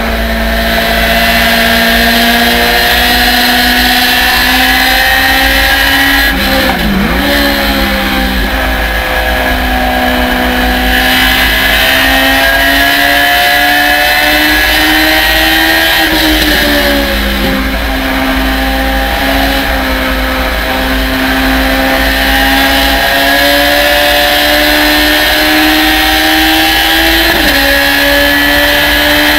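Thunder Roadster race car's engine pulling hard on track, its pitch climbing steadily through each gear. Gear changes break the note about seven seconds in, again about sixteen seconds in, and once more near the end. Wind and road noise rush through the open cockpit behind it.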